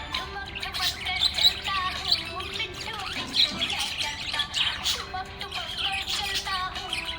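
Budgerigars chirping and warbling, many short rising and falling calls overlapping without a break.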